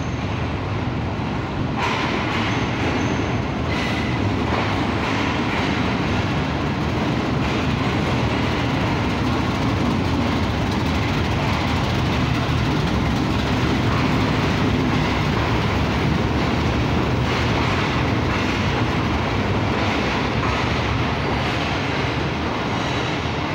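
Passenger train pulling into a station: a diesel locomotive and then its coaches rolling past along the platform, a steady rumble that grows somewhat louder toward the middle. A few brief high squeals sound in the first few seconds.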